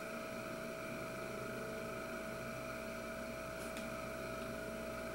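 Heavy wooden spinning top, about 4.5 pounds, spinning on its point in a shallow wooden dish: a steady, even hum.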